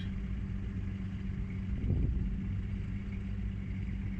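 A 4x4's engine running steadily with a low hum, with a brief louder rumble about two seconds in.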